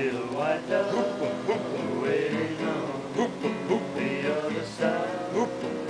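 Background music with plucked string instruments, in a country style.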